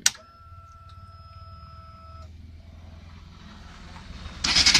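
Ignition switched on with a sharp click, then a steady electric whine for about two seconds that cuts off suddenly. Near the end the Bajaj Pulsar RS200's single-cylinder engine starts with a sudden loud burst and begins running.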